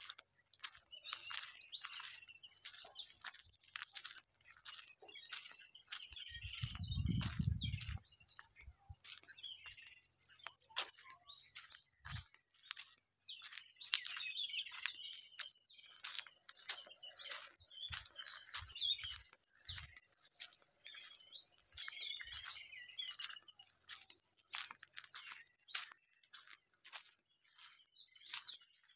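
A steady, high-pitched insect drone with many birds chirping over it. A brief low rumble comes about seven seconds in, and the chorus fades toward the end.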